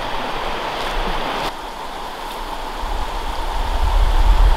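Shallow river running over rocks: a steady rush of water. The sound steps down suddenly about a second and a half in, and a low rumble builds in the second half.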